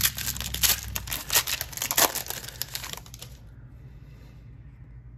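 Foil trading-card pack wrapper being torn open and crinkled by hand, a dense crackling rustle that stops about three seconds in. After that there is only faint rustling as the stack of cards is handled.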